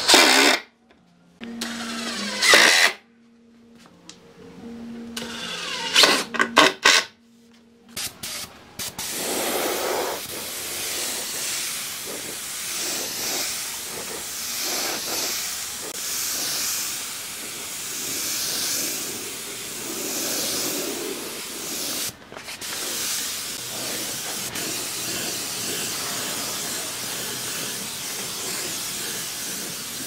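Cordless impact driver driving screws into a wooden tabletop in a few short bursts. From about eight seconds on, a compressed-air spray gun hisses steadily as it sprays finish, the hiss swelling and fading with each pass.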